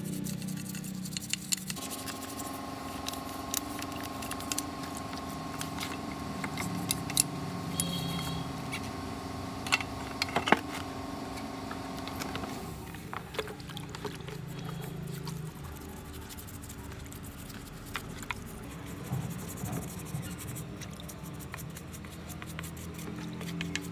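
Toothbrush bristles scrubbing a chainsaw's plastic and metal housing in soapy water: quick scratchy rubbing with small clicks and knocks of parts against the tub. A steady hum sits underneath for the first half.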